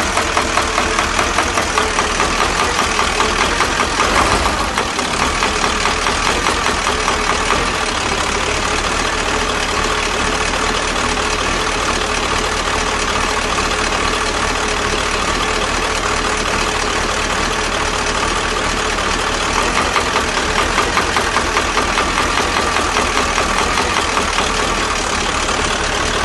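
KamAZ truck diesel engine idling with a steady rhythmic knock, which the owner puts down to a faulty injection-pump plunger. The engine gets briefly louder about four seconds in.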